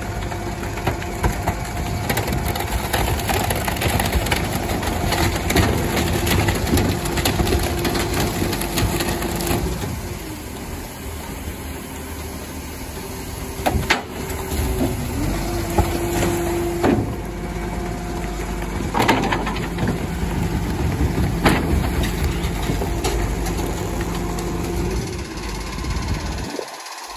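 Rear-loading garbage truck running at idle while its compactor works, a steady whine that comes and goes. Several sharp cracks and bangs come through the middle and second half as bulky hard waste is loaded and crushed in the hopper.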